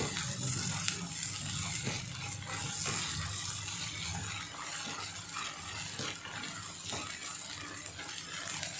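Brain (bheja) pieces sizzling in hot oil in a kadhai as a wooden spatula stirs them, with a few light scrapes of the spatula against the pan.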